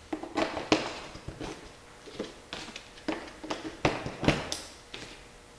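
AAA batteries being pressed into a small plastic battery compartment: a run of irregular clicks and taps as the cells snap against the spring contacts and plastic.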